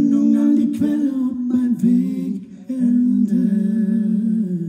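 Voices humming a wordless melody in a low register, moving between a few notes and settling on a long held note near the end.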